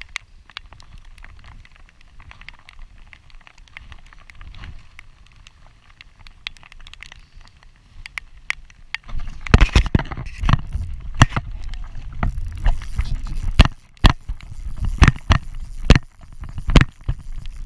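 Scattered faint taps, then, from about halfway, loud irregular knocks and low rumbling from a hand working the fly rod, line and reel right against the camera.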